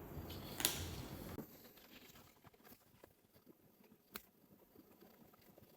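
Quiet room tone with a few faint handling clicks, the two sharpest about half a second in and about four seconds in.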